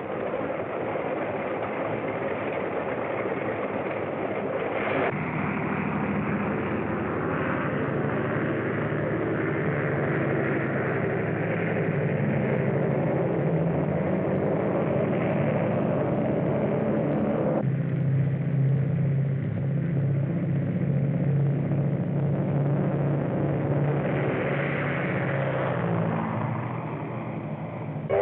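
A steady engine drone that runs on without a break, its tone changing abruptly about 5 seconds and again about 18 seconds in.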